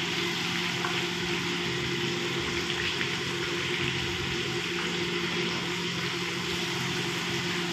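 Fish pieces coated in turmeric masala sizzling steadily in hot oil in a frying pan, with a steady low hum underneath.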